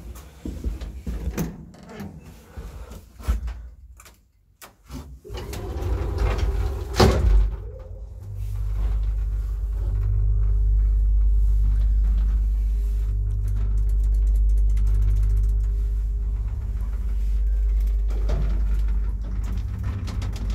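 IFMA T150 traction lift: the doors click and clatter shut, with a loud clunk about seven seconds in, then the car travels with a steady low hum and a faint whine for about ten seconds, changing near the end as it slows.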